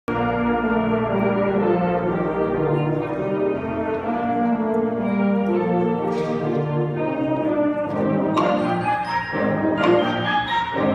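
Concert band of brass and woodwinds playing a piece, holding full sustained chords, with two sharp accents near the end.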